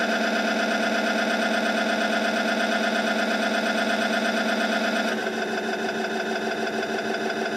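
The 1951 Lanchester LD10's dynamo whirring steadily with the ignition switched on, a hum made of several steady pitches that shifts slightly about five seconds in. The dynamo spins whenever the ignition is on, a noise the owner can't yet explain and wonders may come from the nearly flat battery.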